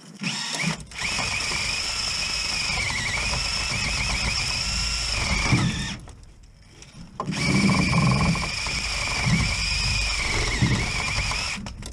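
Cordless drill spinning a wire wheel brush against a rusty chassis bolt head to clean it. It runs twice, about six seconds and then about four seconds with a short break between, its whine dipping in pitch as the brush is pressed into the bolt.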